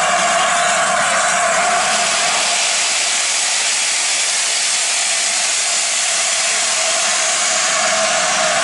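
Steady, loud hiss of steam escaping from LNER A4 Pacific steam locomotive 60007 Sir Nigel Gresley as it stands, with a steady note running through the hiss and no exhaust beats.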